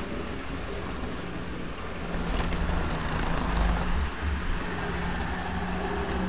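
HO-scale model trains running on the layout: a steady motor whir and wheel rumble on the track, growing louder from about two seconds in.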